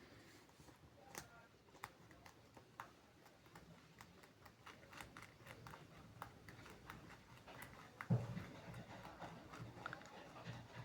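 Dog chewing pumpkin rind: faint, irregular crisp clicks and crunches, with a louder snuffling burst about eight seconds in.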